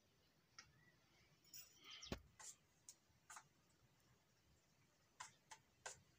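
Faint scattered clinks and scrapes of a metal spoon against steel bowls while mixing a paste, with one louder knock about two seconds in.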